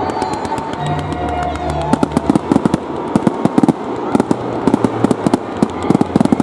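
Fireworks display: many sharp bangs and crackles of aerial shells and crackling stars bursting overhead, coming thickest in rapid succession from about two seconds in.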